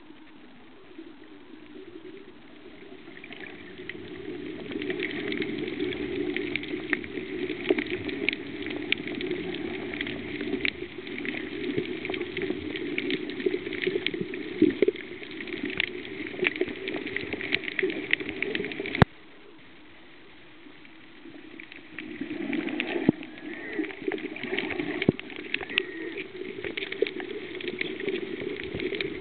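Muffled water noise with frequent small crackling clicks. It drops away suddenly just after the midpoint, leaving a faint hiss for about three seconds, then comes back.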